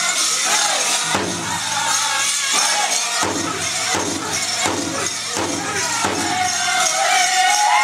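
Powwow drum group drumming and singing, with the bells on the dancers' regalia jingling. A high sung line wavers near the end.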